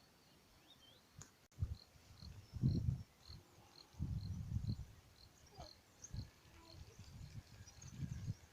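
A faint high chirp repeated evenly, about two or three times a second, with low thuds and rumbles on the microphone at intervals.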